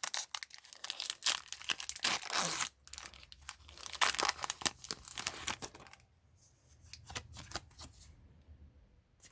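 Foil wrapper of a Pokémon trading-card booster pack being torn open and crinkled, a dense crackling for about six seconds that then dies down to faint handling.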